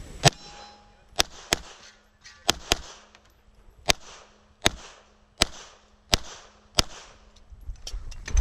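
Semi-automatic pistol firing about ten shots: two quick pairs early on, then single shots roughly three-quarters of a second apart, with a few faint clicks near the end.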